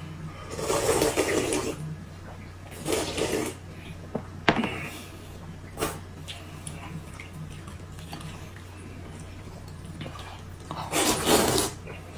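A person slurping rice noodles and broth from a glass bowl in three long slurps: about half a second in, around three seconds in, and near the end. Two short sharp clicks fall in the middle.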